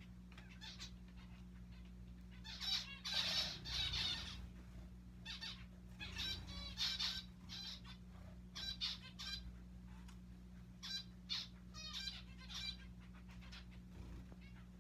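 Zebra finches calling: clusters of short, nasal beeping calls, coming in bursts, with the loudest flurry about three to four seconds in.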